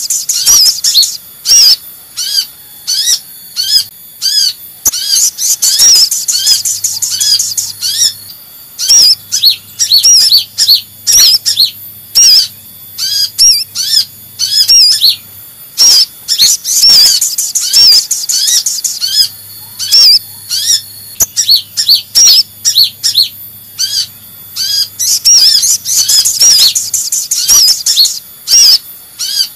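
Bird-trapping lure recording of sunbirds, mixing the agitated ('ribut') calls of van Hasselt's sunbird (kolibri ninja) with sogon sunbird calls. High, thin arched chirps come a few per second. They break into dense, loud twittering three times: right at the start, about halfway through, and near the end.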